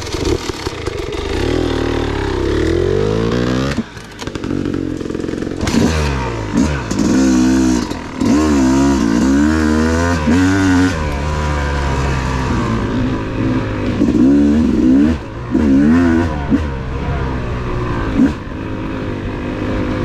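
Yamaha YZ250 two-stroke dirt bike engine pulling away from a stop and riding a dirt trail, its revs rising and falling again and again as the throttle is worked and the gears go up.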